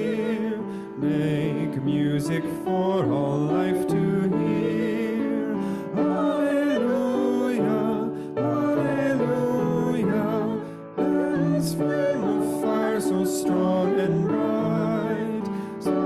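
Hymn sung with vibrato to piano accompaniment, in phrases with short breaths between them.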